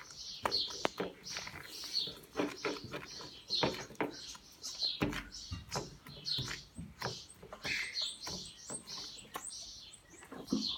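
Sticky glue-and-detergent slime squelching and clicking irregularly as it is kneaded by hand; it is still tacky and pulls at the fingers, a sign it is not fully set.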